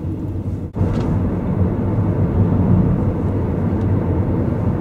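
Steady low rumble of a Toyota Prius driving along a road, heard from inside the cabin, with a brief break about three-quarters of a second in.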